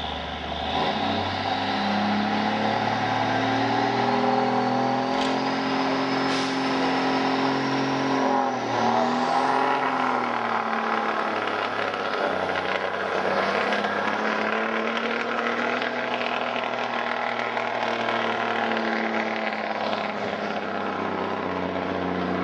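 Pulling truck's engine running hard under heavy load as it drags the weight-transfer sled down the dirt track, with a thin high whistle that climbs slowly in pitch and then sweeps sharply higher about nine seconds in.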